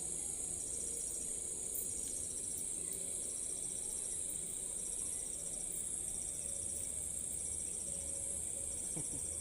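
Insects calling: a steady high-pitched drone with short trilled chirps repeating at an even pace over it.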